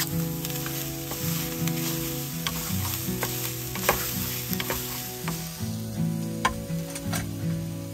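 Chicken, bell peppers and onions sizzling in a camp frying pan over a gas burner, with a spatula stirring and scraping them in repeated short clicks. Soft background music plays under it.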